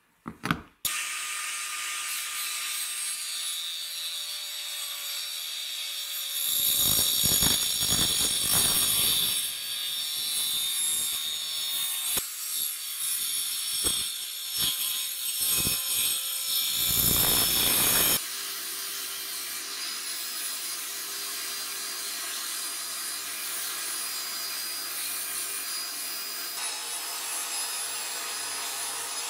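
A power tool runs up, then cuts through a laminated wooden block: loud, rough cutting for about twelve seconds with scratchy bites. Near the two-thirds mark it gives way to a steadier, quieter sanding disc spun by an electric drill, grinding the edges of the wooden handle scales.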